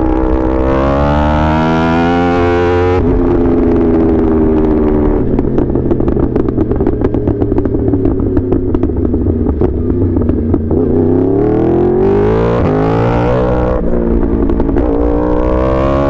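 Yamaha R1 inline-four engine accelerating through the gears, its pitch climbing and then dropping at each upshift. In the middle it runs rough and uneven at low revs with a spatter of crackles, then pulls up through two more shifts near the end.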